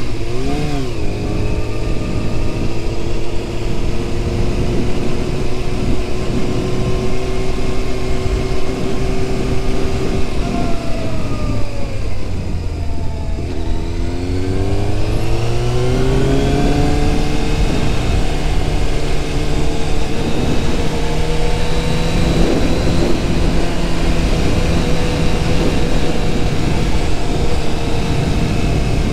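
1997 Yamaha YZF600R's inline-four engine, heard from the rider's seat over a steady rush of wind. It revs briefly right at the start and then cruises steadily. About ten seconds in the revs fall away for a few seconds, then climb again and settle into a steady pull.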